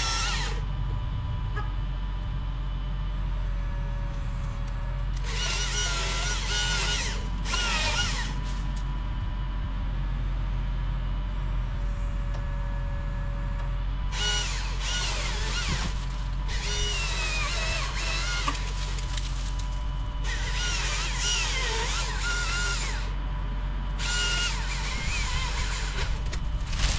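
Chainsaw engine running steadily, revved hard several times in bursts of a second to three seconds, with its pitch wavering as it cuts through wood.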